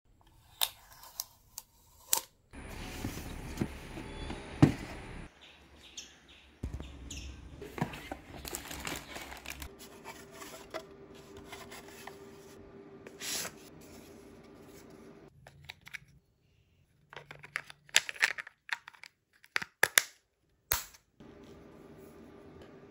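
Unboxing handling: a seal sticker is peeled and paper packaging rustles and tears, then plastic clicks and knocks as the device and its cables are handled.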